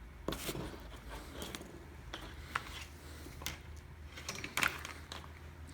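Scattered small clicks, taps and rustles of a vehicle wiring harness and its tape being handled, over a low steady hum.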